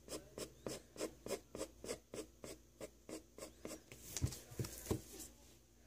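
Graphite pencil scratching on paper in quick, even back-and-forth strokes, about four a second. About four seconds in the strokes stop, and there is a brief rustle of paper with two soft knocks.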